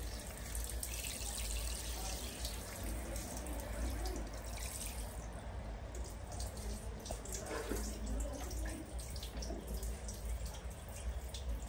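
Water running from a handheld shower head, spraying and splashing steadily into a plastic basin partly filled with water.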